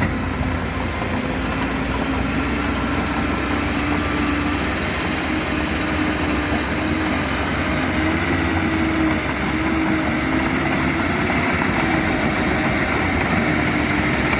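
Diesel engines of a backhoe and bulldozer running steadily at a construction site, a low rumble with a wavering engine tone. A faint high whine grows stronger near the end.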